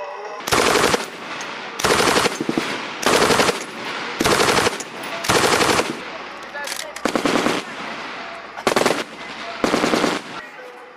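Light machine gun firing short bursts of a few rounds each, about eight or nine bursts spaced roughly a second apart.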